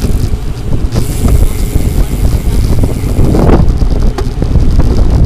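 Wind rushing over the microphone on a moving bicycle: a loud, steady low rumble, with a brief stronger rush about three and a half seconds in.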